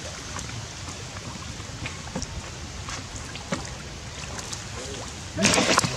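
Water sloshing and lapping as macaques swim and paddle in a pool, with faint small splashes, then one loud splash about five and a half seconds in.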